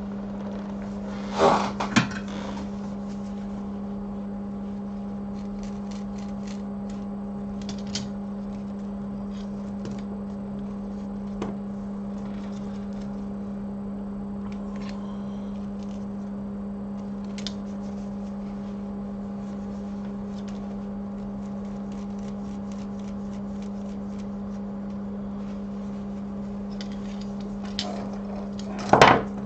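Steady low electrical hum from bench equipment, with two knocks about a second and a half in, a few light clicks of tools being handled, and another knock near the end.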